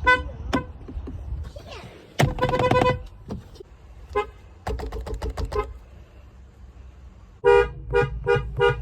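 Car horns honking in separate bursts: a short toot, then one long blast about two seconds in, a quick cluster of short toots around the middle, and a rapid series of short beeps starting near the end.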